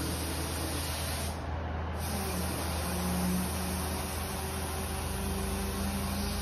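Steady hiss of compressed air from an SCBA air bottle rushing through a fill fitting into an NRS inflatable rescue boat's tube as it inflates. The hiss briefly thins out about a second and a half in.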